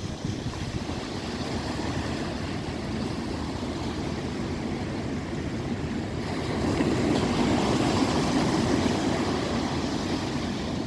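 Sea waves breaking and washing in, with wind buffeting the microphone; the surge swells louder about two-thirds of the way through, then eases near the end.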